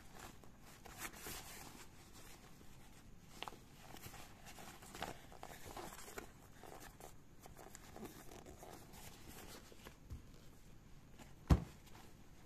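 Nylon fabric of an Eiger Clutch 1.0 waist bag rustling, with small zipper clicks, as hands rummage through its open main compartment. One sharp knock near the end.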